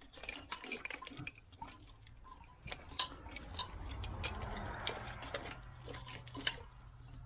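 Scattered light clicks and small knocks of hands handling wiring and parts in a car's engine bay, with a faint rustle partway through and a low steady hum underneath.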